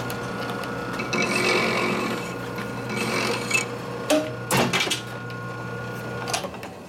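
Metal lathe running with a steady motor hum while the outside of a steel nut is cut down. From about a second in to three and a half seconds a higher ringing whine and scraping come from the cut on the hot work. A few sharp knocks follow near the middle and again near the end.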